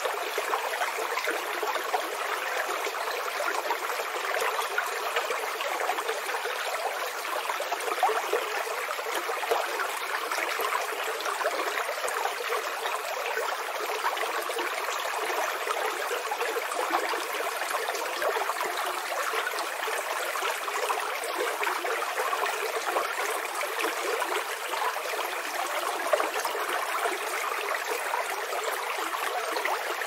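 Small stream of water flowing steadily, a continuous fine splashing and trickling without rises or falls.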